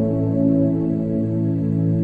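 Background music: a calm new-age piece of steady, sustained notes.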